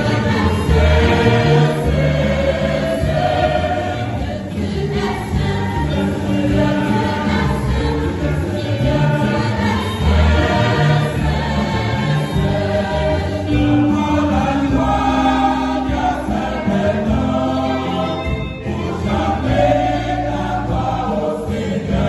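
Mixed choir of men's and women's voices singing a hymn in parts, continuous sustained singing.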